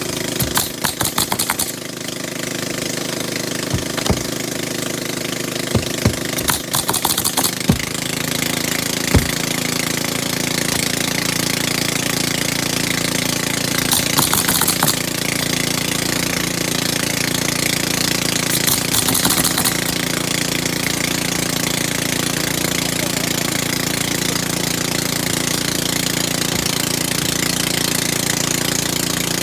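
Pneumatic roofing nailer driving nails into asphalt shingles: a run of sharp shots in the first several seconds. About eight seconds in, an engine starts running steadily underneath, with two short hisses later on.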